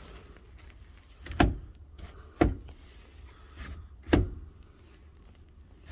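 Sharp, hollow knocks of PVC pipe being worked in and out of an unglued fitting, three loud knocks a second or more apart with a softer one between, over a low steady hum.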